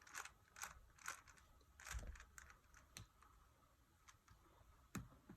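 Rubik's cube layers being turned by hand: faint, irregular plastic clicks, about two a second.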